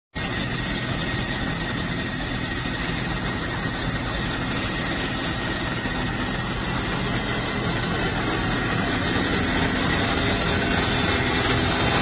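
Steady drone of machinery running, a low hum with a faint high whine over it, growing slightly louder toward the end.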